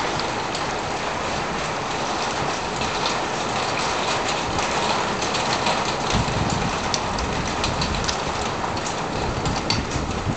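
Steady rain with many scattered drops ticking sharply.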